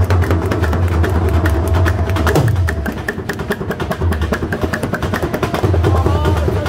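Dhol drums played together in a fast, dense rhythm: deep bass strokes under rapid sharp stick strokes. The bass drops back about three seconds in and returns near the end.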